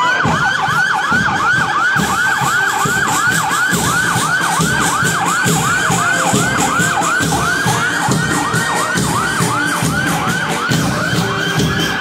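Police patrol car siren on a fast yelp, a rising sweep repeated about three times a second, with a longer slide near the end.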